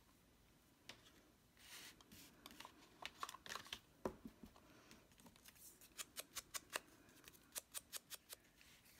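Faint soft scuffing and dabbing of a foam ink blending tool on a Distress ink pad and on the edges of paper die cuts, with quick runs of light taps about six seconds in and again near the end.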